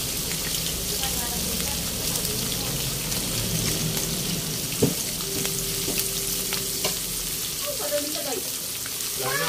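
Whole round scad (galunggong) frying in hot oil in a pan: a steady sizzling hiss with scattered crackles of spattering oil, and one louder pop about five seconds in.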